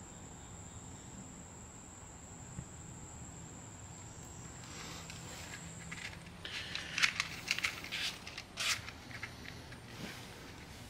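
Faint scrapes and crackles of kitchen matches being struck to light a homemade alcohol stove, in a short cluster a little past halfway, over a thin steady high tone that stops about six seconds in.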